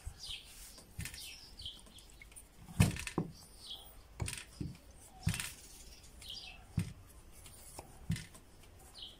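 A glass bottle used as a rolling pin knocking and rolling on a wooden cutting board, giving irregular dull thumps, the loudest about three seconds in. Small birds chirp now and then in the background.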